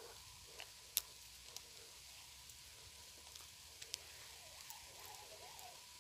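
Near quiet, broken by a few short sharp clicks, the loudest about a second in, over a faint steady high tone.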